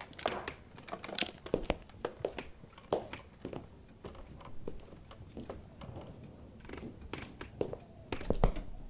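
Irregular footsteps and knocks of people moving about a small room, with one louder thump near the end.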